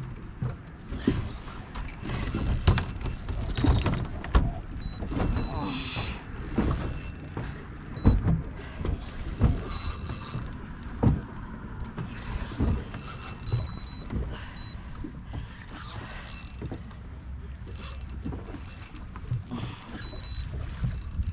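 Spinning reel working against a hooked fish: short high whirs of line pulling off the drag several times, with the reel being cranked between them, over irregular dull thumps.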